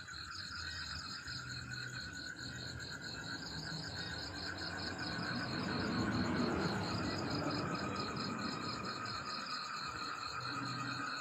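Insects calling in a steady, rapidly pulsing chorus at several pitches, like crickets at night. A broad rush of noise swells and fades in the middle.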